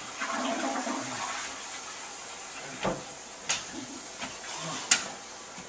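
Water rushing, like a flush, followed by three sharp knocks, the last the loudest.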